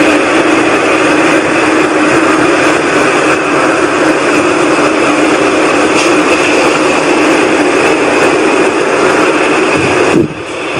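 A loud, steady rushing drone from the night sky, something between a whoosh and a rumble, with a brief dip in level near the end. This is one of the unexplained 'sky sounds' that the recorder insists is not aircraft noise.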